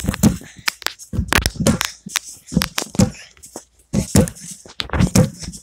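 Rough handling noise on a phone's microphone: rustling, scraping and dull bumps at an uneven pace of about two a second as the phone is jostled.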